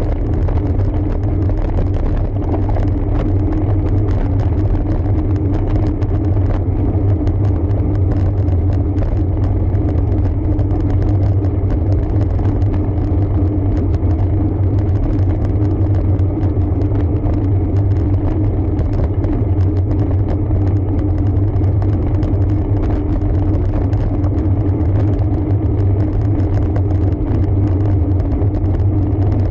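Steady low rumble with a constant hum underneath, unchanged throughout: the riding noise of a road bike picked up by a camera mounted on it, tyres rolling and the frame vibrating.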